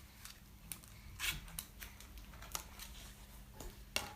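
Faint scattered clicks and rustles over a steady low hum, the strongest click about four seconds in.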